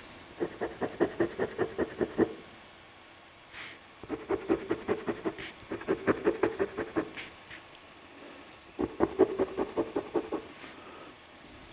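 A coin scratching the coating off a paper crossword scratch-off lottery ticket. It comes in three bouts of quick back-and-forth strokes, about six a second, each lasting about two seconds.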